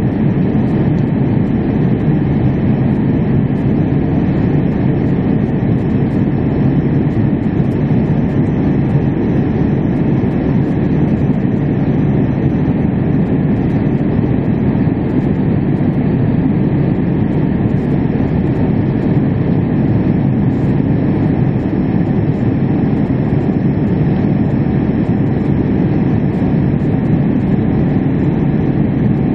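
Steady cabin noise inside a Boeing 787-8 airliner in flight: its Rolls-Royce Trent 1000 turbofan engine and the rushing airflow, heard as an even low-pitched noise without change.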